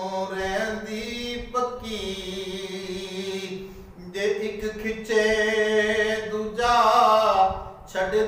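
A man's voice chanting Punjabi Sufi verse in a sung style, in long drawn-out melodic phrases. There are short breaks for breath about a second and a half in, around four seconds, and near the end.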